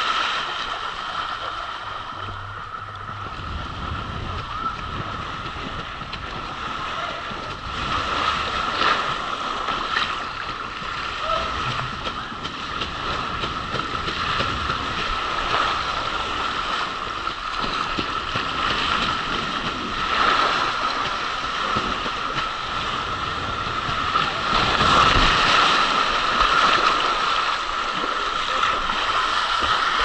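Water rushing and splashing under a rider sliding down an open water slide: a steady wash of running water that swells louder on the bends. It ends with the splash-down into the pool.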